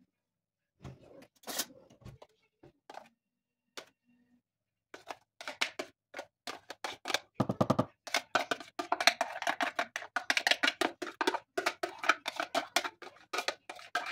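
A glass bowl being tapped and scraped as grated mixture is emptied out of it: scattered clicks at first, then from about five seconds in a quick, dense clatter with a couple of short rattles.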